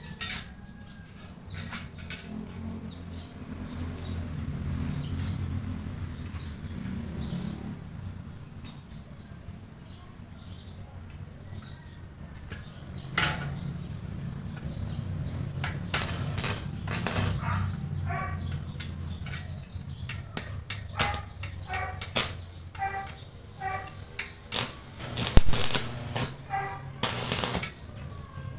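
Metal tools and parts being handled during a motorcycle rim repair: irregular sharp clicks and clinks, some with a brief metallic ring, growing busier about halfway through, over a steady low rumble.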